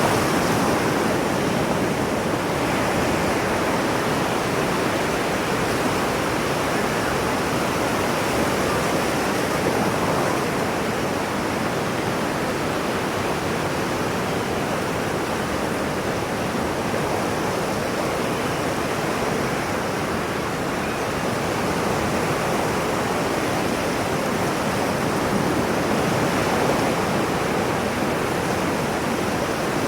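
Ocean waves: a continuous wash of surf with no separate breakers, swelling and easing only slightly.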